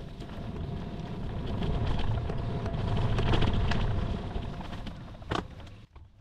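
A motor vehicle passing by: road and engine noise that builds to a peak about three seconds in and then fades, with a single sharp click about five seconds in.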